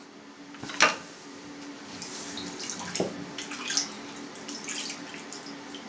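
Hands dipping and splashing in a small bowl of cold water, wetting them before shaping minced meat. A single light knock about a second in.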